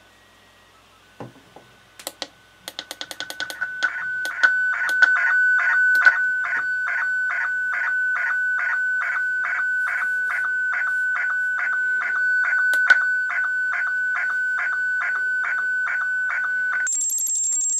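Slow-scan television (SSTV) image signal from a Quansheng UV-5R Plus transmission, heard as radio audio. After a few clicks about two seconds in, a steady warbling tone near 1.5 kHz starts, ticked by a sync pulse a little over twice a second as each picture line is sent. Near the end it gives way to a different steady high sound.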